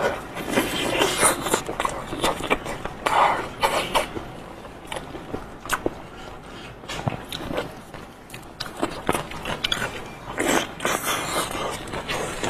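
Close-up eating sounds: biting into a soft, sauce-coated round of meat and chewing it wetly, with many short smacks and clicks.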